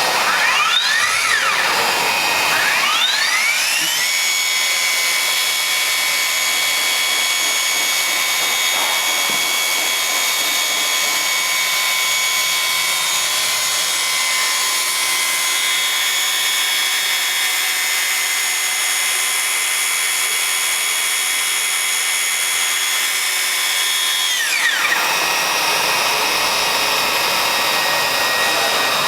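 Plastic welding robot's welder running: a high-pitched motor whine over a steady hiss. The whine rises in pitch over the first few seconds, holds steady, then drops back near the end while the hiss carries on.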